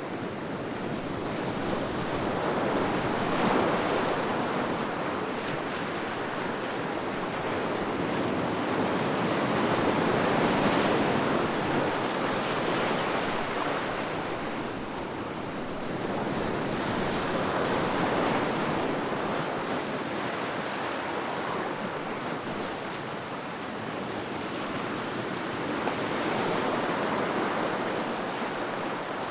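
Sea waves breaking and washing on a shore, swelling and receding in slow surges every several seconds.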